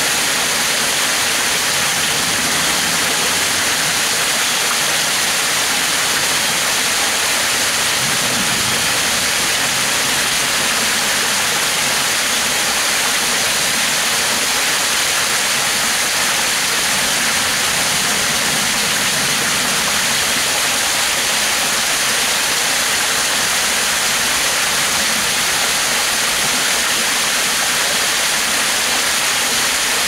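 Small waterfall splashing over a rock ledge into a pool: a steady, unbroken rush of falling water.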